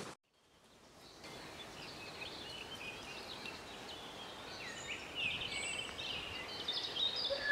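Woodland birds singing, many short chirps and trills over quiet country air. Right at the end the whistle of a steam locomotive, the rebuilt Bulleid Pacific no.34059, begins, a held chord of several notes.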